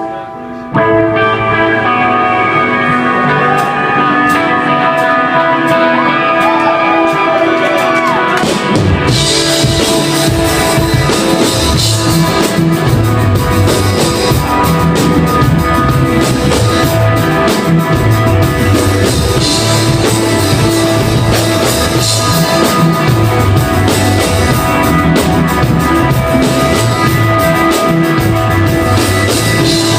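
A rock band playing live. Guitar plays alone at first, then drums and bass come in about eight seconds in and the full band plays on steadily.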